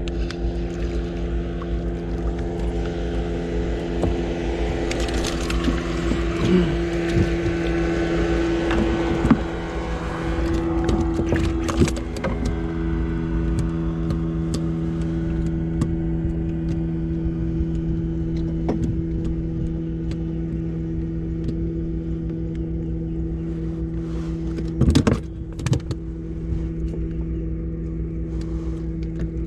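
Small Tohatsu outboard motor running steadily at low throttle, with a couple of sharp knocks near the end; the engine sound cuts off right at the end.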